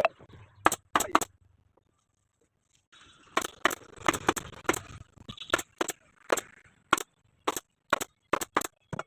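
A series of sharp snaps, about seventeen, two near the start and then irregularly every half second or so: typical of a staple gun fastening a scooter seat cover to its base.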